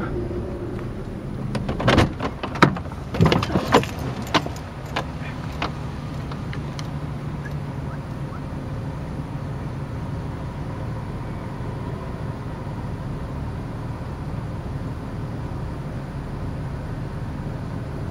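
A vehicle engine running steadily with a low hum. Several sharp knocks and rattles come in the first few seconds, like handling noise or a door.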